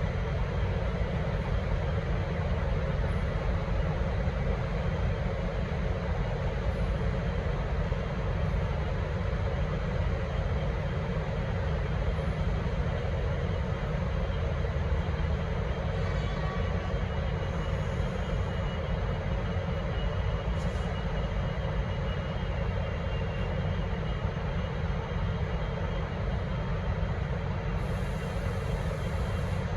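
Steady low rumble of a V/Line N class diesel-electric locomotive running, unchanging throughout.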